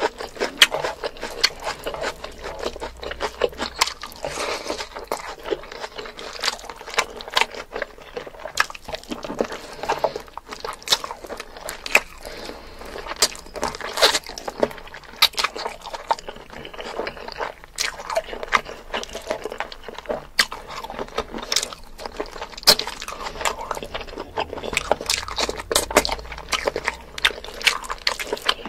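Close-miked eating sounds of spicy mutton curry and rice eaten by hand: chewing and lip smacking, with many irregular sharp wet mouth clicks.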